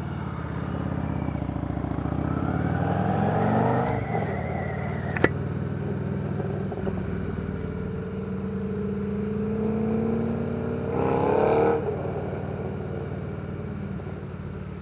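Victory Vegas V-twin motorcycle engine pulling away and accelerating, its note rising through the gears twice. There is a single sharp click about five seconds in and a brief louder rising engine burst around eleven seconds.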